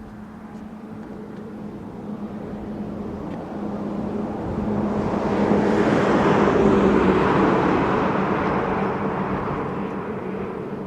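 A motor vehicle passing by: a steady engine hum that grows louder to a peak about six seconds in, then fades away.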